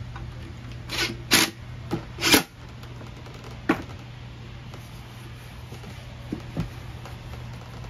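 Handling noise from a cordless drill/driver being worked with and set down on a workbench: four short clattering knocks in the first two and a half seconds, a sharp knock a little later, then a couple of faint taps, over a steady low hum.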